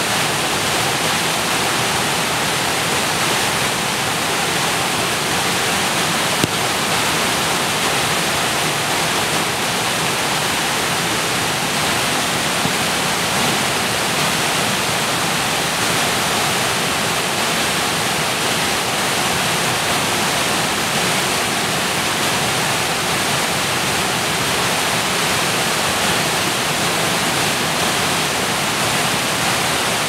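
Steady rushing roar of a high-volume waterfall, churning brown meltwater plunging over rocks, with no let-up.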